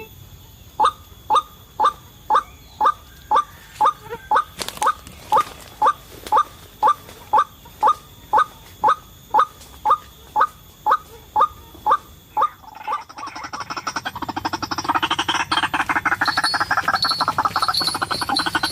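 White-breasted waterhen calling: a steady series of short harsh "kwak" notes, about two a second, then from about thirteen seconds in a dense, continuous harsh chattering.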